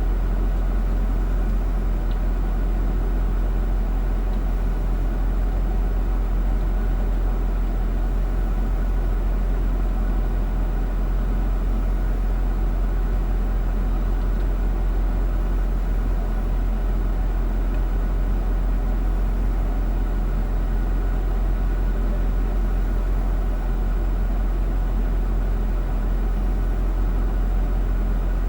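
Mercedes-Benz ML SUV driving off-road: a steady engine and driving noise with a strong low rumble that stays even throughout.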